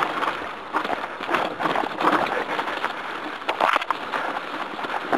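Mountain bike riding down a rough dirt trail, heard from a helmet camera: tyres on dirt and stones and the bike rattling, in uneven noisy surges with many short clicks.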